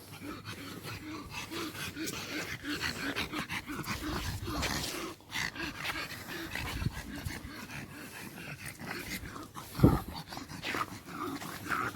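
Pet dogs close to the microphone, making a run of short, irregular sounds, with one sharp thump about ten seconds in.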